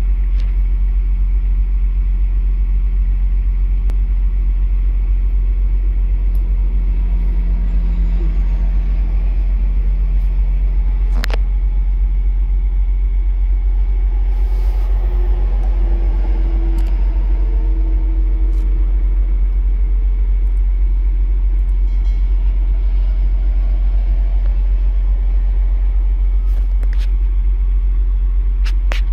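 Loud, steady low rumble of an idling engine, with a single sharp click about eleven seconds in.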